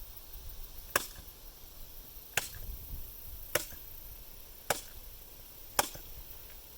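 Staple gun fired five times, roughly once every second or so, fastening a target to a backer board: five sharp snaps.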